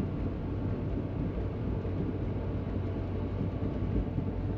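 Steady low rumble of a car's road and engine noise, heard from inside the cabin while driving, with a steady low hum underneath.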